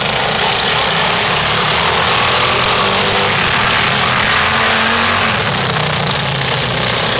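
Racing lawn mower engines running hard on a dirt track, their pitch slowly rising and falling as they speed up and ease off.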